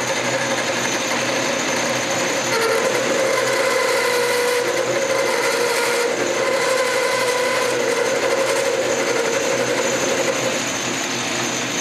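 Craftsman Commercial metal lathe running steadily under power, its motor and drive giving a constant whine over a steady mechanical hum.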